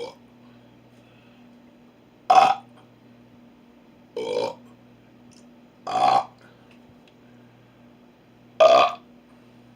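A person burping four times, short separate burps a couple of seconds apart, the first and last the loudest.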